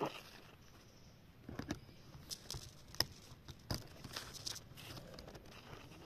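Spinning fishing reel being handled and worked on: a few scattered light clicks with faint rustling in between.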